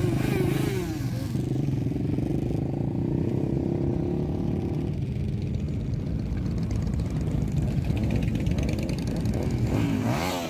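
A line of motorcycles, cruisers and sport bikes, riding slowly past one after another with their engines running at low revs. Engine pitch rises briefly about a second in, and it swings quickly up and down a few times near the end as a Suzuki SV sport bike passes close.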